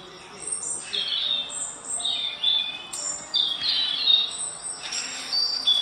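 Small birds chirping in quick, repeated high calls, played from a CatTV bird video through an Amazon Echo Show's speaker.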